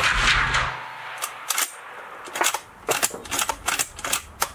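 Report of a Pedersoli 1886 lever-action rifle in .45-70 Government dying away as it opens, then a run of sharp metallic clicks and clacks as the lever is worked to cycle the action for the next shot.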